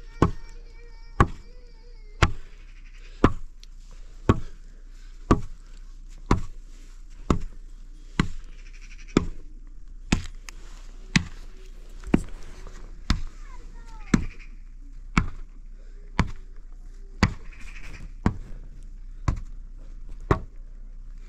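Sharp knocks struck evenly about once a second, like steady chopping or pounding. A bleat sounds near the start, with fainter animal calls later on.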